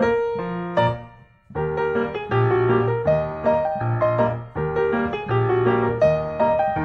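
Background piano music. It fades and drops away briefly about a second in, then comes back with a repeating pattern of notes.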